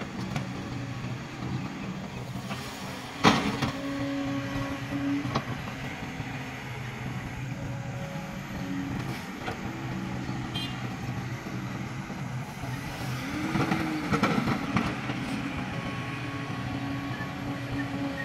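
Kobelco hydraulic excavator's diesel engine running steadily while loading a dump truck, with a single loud crash about three seconds in as a bucketload of earth and stone drops into the truck's steel bed. About two-thirds through, the engine note rises and falls as a machine revs.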